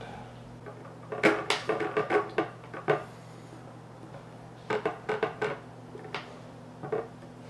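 Irregular light clicks and taps of fingers handling a bare graphics card circuit board on a tabletop while pressing thermal pads onto its memory chips. They come in bursts about a second in and again about five seconds in, with a couple of single taps after.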